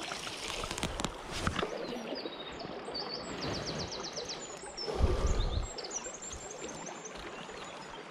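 River water flowing steadily, heard from mid-river, with a small bird singing quick runs of repeated high notes twice in the background. A brief low rumble comes about five seconds in.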